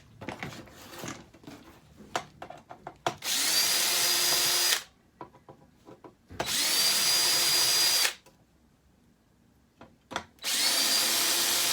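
A power drill running in three bursts of about a second and a half each, spinning up and winding down every time, as it backs out the screws of a door lock's back cover. Light clicks and handling noises come before the first burst.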